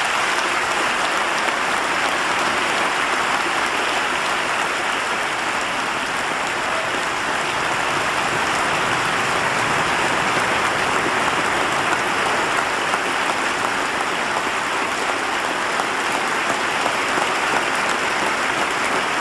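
Large audience applauding steadily in a long, unbroken ovation.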